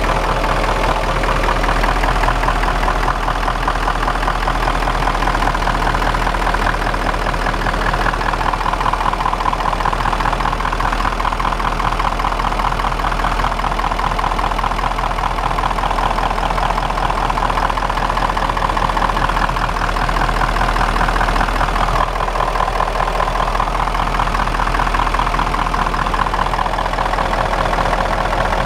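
Diesel engine of a Niigata rotary snowplow running steadily.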